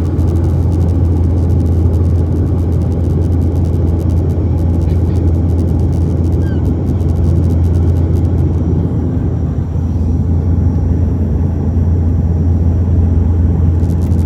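Airliner cabin noise while the plane rolls on the runway after landing: a loud, steady low rumble with a deep hum underneath.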